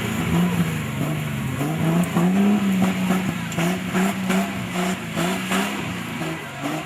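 Off-road 4x4 engine revving in repeated throttle bursts, its pitch rising about two seconds in and then pulsing up and down, with scattered knocks and clatter.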